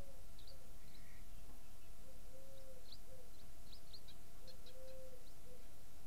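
A dove cooing a low three-note phrase, short-long-short, repeated about every two and a half seconds, with small birds giving short high chirps over it.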